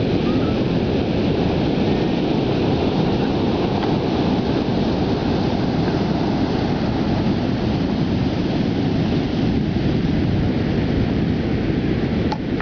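Steady rumble of wind buffeting the microphone over the rush of breaking ocean surf, with a small knock near the end.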